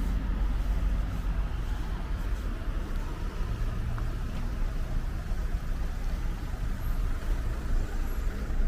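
Steady low rumble of outdoor city ambience, with no single event standing out.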